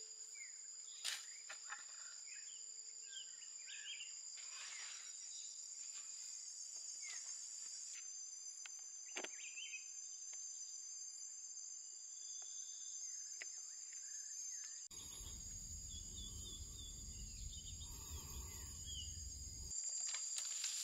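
Insects droning steadily at two high pitches, with scattered bird chirps and a few soft knocks. For several seconds near the end, a low rumbling noise sits under the drone.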